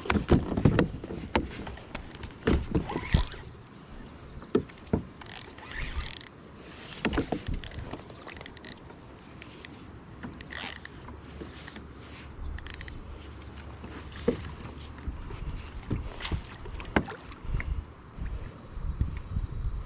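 Irregular knocks and clicks of gear being handled on a plastic fishing kayak, some sharp and loud, over a low rumble of wind on the microphone.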